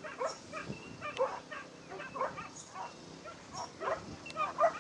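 Dogs yelping and barking excitedly in quick, repeated high-pitched calls, several each second, the way waiting dogs do while another dog chases the lure.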